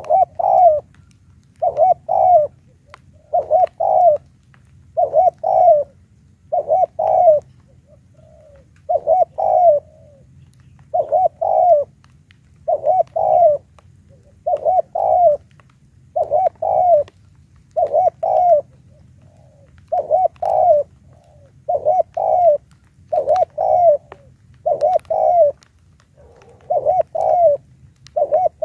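Caged decoy spotted dove cooing over and over, each call a quick pair of low coos, repeated about every two seconds in a steady rhythm.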